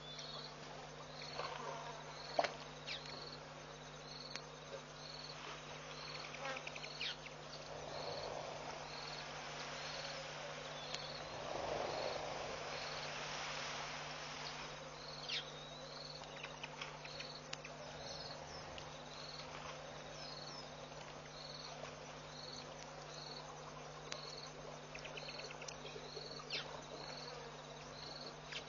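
An insect chirping steadily in evenly spaced high chirps, a little more than one a second, over a steady low hum. A few sharp clicks stand out, the loudest about two and a half seconds in.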